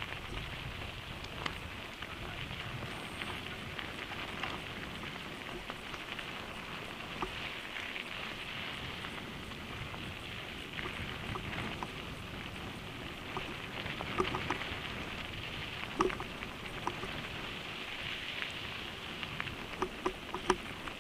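Mountain bike tyres rolling over a gravel road: a steady crunching hiss with scattered sharp clicks and knocks from stones and the bike, the loudest about 16 seconds in.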